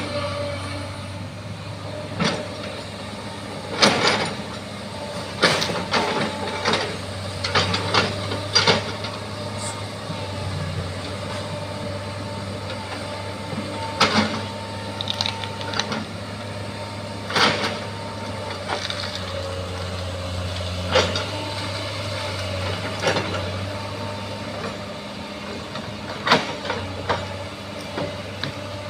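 Bulldozer's diesel engine running steadily, with irregular sharp clanks and knocks over it.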